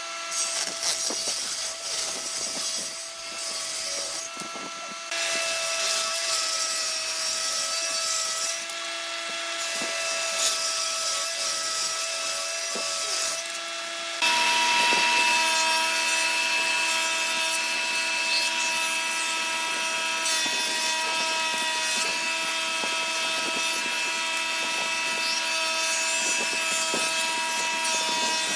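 A combination woodworking machine (table saw and thickness planer in one) running with a steady whine while boards are cut on it. The machine's sound changes abruptly about halfway through, then settles into a new steady pitch.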